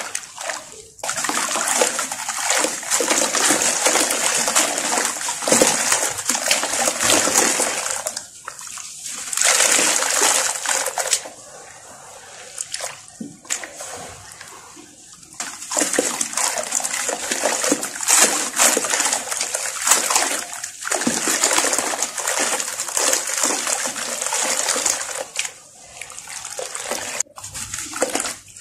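Hands swishing and splashing through water thick with wet sand-cement in a plastic tub, in repeated bursts with quieter spells between. After a short break near the end, crumbled cement sand pours from a hand.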